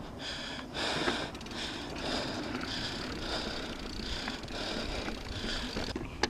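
Mountain biker breathing hard and fast, about two breaths a second, after a crash, over a steady low rumble of the bike rolling on dirt trail. There is a sharp click near the end.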